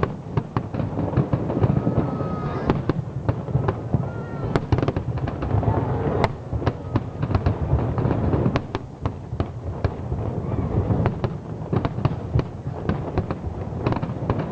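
Aerial fireworks going off in quick succession: many sharp bangs and crackles over a continuous low rumble of booms.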